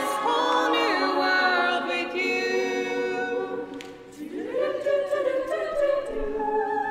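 Women's a cappella group singing in close harmony without instruments: one held chord fades about four seconds in, then a new chord rises in and holds, a hand-over from one song of the medley to the next.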